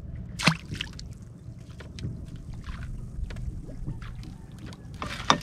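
Water lapping and wind on the microphone by the fishing spot, with two sharp knocks, one about half a second in and one near the end.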